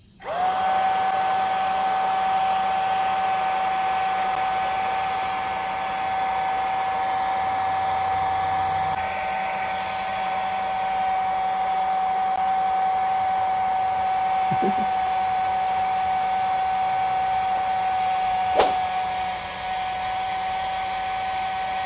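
A small electric bubble machine switches on, its fan motor spinning up within a moment and then running with a steady whine and a rush of air. A single sharp click sounds near the end.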